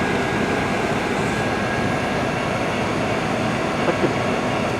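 Freight train moving very slowly past, a steady, even rolling noise with no distinct events.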